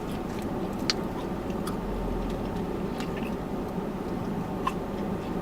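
A person chewing food close to the microphone, with a few small sharp mouth clicks, over a steady low hum inside a car.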